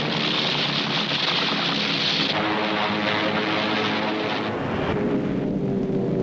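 Propeller-driven piston-engine aircraft droning, a steady engine note of several tones over a rushing hiss. The hiss thins out about two seconds in and again near the end, and the drone carries on.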